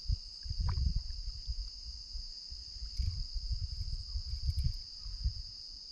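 A steady night chorus of crickets and other insects, a continuous high-pitched trill, with irregular low rumbling underneath.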